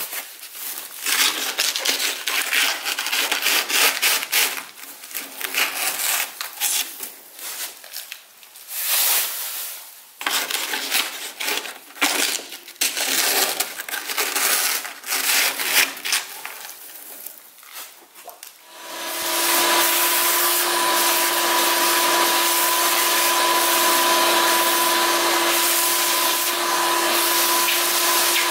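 Irregular scraping and rubbing as loose soot and creosote crumbs are scraped out of a wood cookstove's oven cavity. About two-thirds of the way in, a vacuum cleaner switches on and runs steadily with a steady hum.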